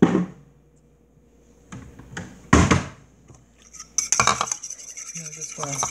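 Metal spoon knocking and clinking against a ceramic bowl: a few separate knocks, the loudest about two and a half seconds in, then rapid clinking from about four seconds in as a sauce is stirred in the bowl.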